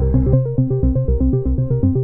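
Background music: electronic synthesizer music with a quick run of repeated notes. The heavy bass drops out shortly after the start, leaving lighter keyboard notes.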